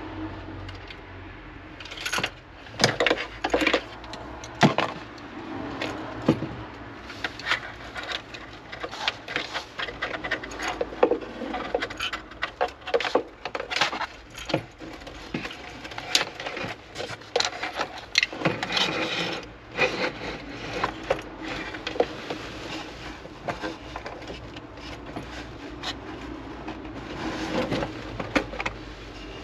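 Many irregular knocks, taps and scrapes as a 3D-printed plastic heat exchanger and its wiring are handled and fitted into a wooden cabinet.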